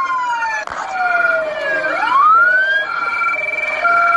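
Electronic police sirens sounding together: falling wails, a rising sweep about two seconds in, then a two-tone high-low alternation.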